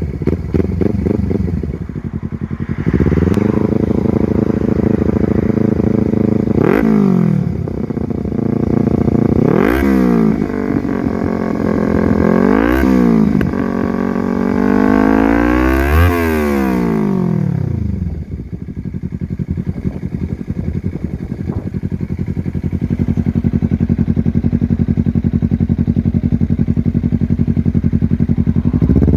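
Kawasaki Z300's parallel-twin engine revved at standstill through an FRK aftermarket slip-on exhaust. It is held at raised revs for a few seconds, blipped three times, given one longer rev that climbs and falls about sixteen seconds in, then settles to a steady pulsing idle for the last ten seconds or so.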